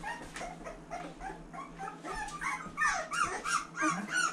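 Three-and-a-half-week-old boxer puppies whimpering and yipping: a string of short, whiny squeals that rise and fall, thickest about three seconds in.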